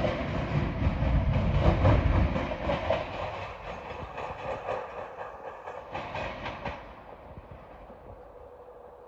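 Union Pacific local freight train rolling across a railroad diamond crossing, its wheels clattering over the crossing's rail gaps. The clatter is loudest in the first few seconds, then fades away as the train moves off.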